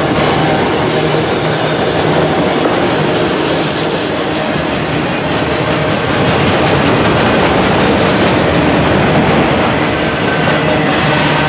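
Freight cars rolling past on steel wheels, a steady loud rumble and rattle of wheels on rail with faint, steady wheel-squeal tones.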